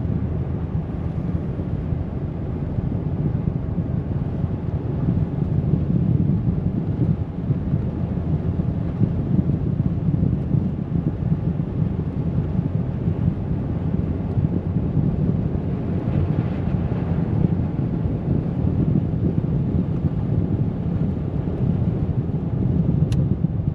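Steady low road and engine rumble of a moving vehicle, heard from inside the cabin while driving on a snowy road.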